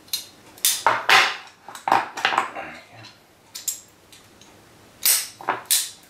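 Sharp metallic clicks and clacks of mole grips (locking pliers) being adjusted and clamped onto a heavy copper cable terminal to crimp it, in short clusters about a second in, around two seconds in and near the end.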